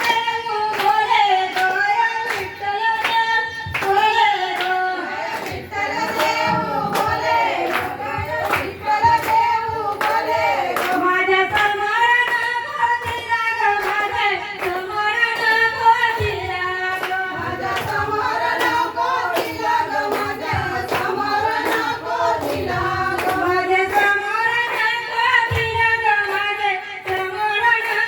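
A woman singing a traditional Ganpati devotional song with no instruments, hands clapping steadily in time, about two claps a second.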